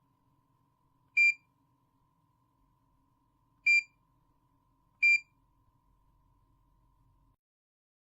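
Digital clamp meter's built-in beeper giving three short, high-pitched beeps at uneven intervals, about a second, three and a half and five seconds in.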